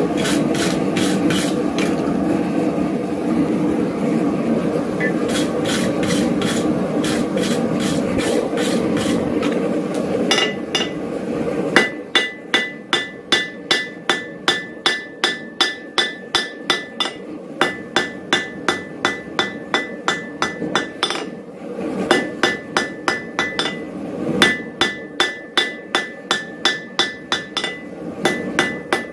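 A wire brush scrubbing scale off hot steel on the anvil for the first ten seconds or so, then a steady run of hammer blows on hot steel at the anvil, about two or three a second with a few short pauses, each blow ringing clearly.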